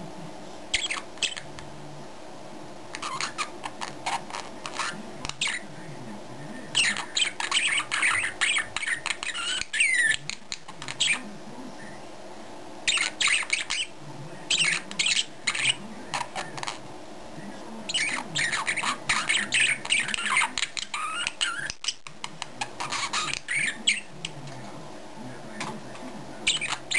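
A small animal squawking and chirping in repeated bursts of one to three seconds, each burst a quick run of short, sharp clicks and chirps.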